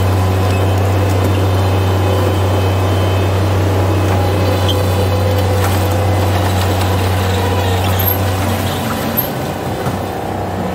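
Bobcat MT85 mini track loader's diesel engine running steadily under load while the machine works. After about eight seconds its steady hum drops and turns uneven as the loader moves away.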